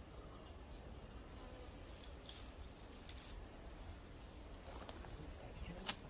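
Faint outdoor ambience with a low hum of insects, a few soft brief rustles, and a sharp click just before the end.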